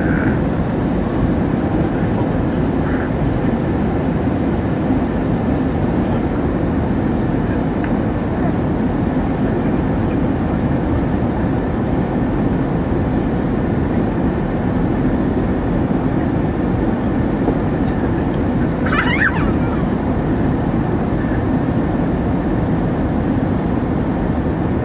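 Steady roar of jet engines and rushing air inside an airliner cabin, descending on approach to landing. A short higher-pitched sound cuts in briefly about three quarters of the way through.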